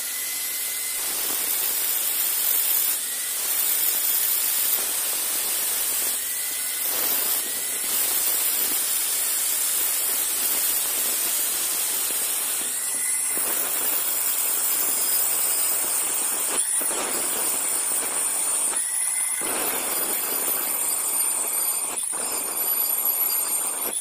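Handheld electric angle grinder with an abrasive cut-off disc cutting notches into a steel plate: a steady, loud hissing screech of disc on metal. A few short breaks come in the second half, where the disc lifts out of the cut.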